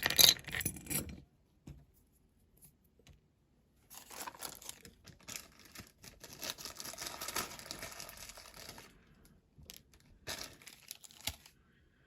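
Rustling and crinkling, as of material being handled and torn, in three spells: a loud one at the start, a longer one from about four to nine seconds in, and a short one near the end.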